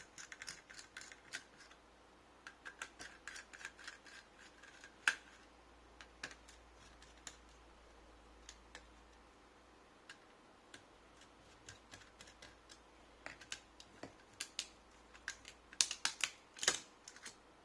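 Scattered light clicks, taps and scrapes of plastic and metal laptop parts being handled during disassembly. The sounds come in clusters near the start and again near the end, with a sharper click about five seconds in.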